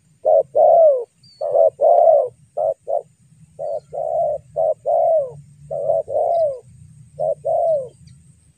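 Spotted dove cooing: repeated phrases of a short coo followed by a longer coo that slides down in pitch, about seven phrases in a row.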